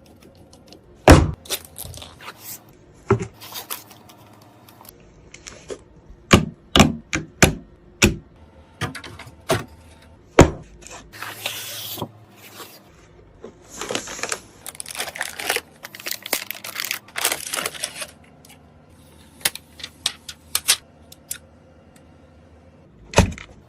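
Computer parts being handled and fitted in a PC case: scattered sharp clicks and knocks, with stretches of rustling and scraping in the middle.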